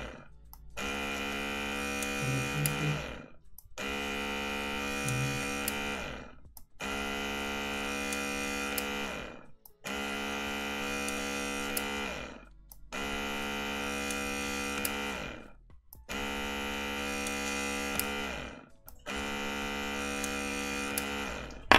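Automatic cat feeder's small gearmotor driving its plastic gear train, switched on seven times in a row for about two and a half seconds each, with a steady whine that falls away as it spins down after each run. It runs normally without stalling, so the jam being tested for does not show.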